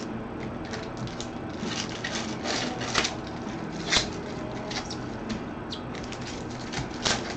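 Trading-card packs being handled and torn open in gloved hands: the foil wrappers crinkle and crackle and the cards rustle, with a few sharper crackles about three and four seconds in and near the end.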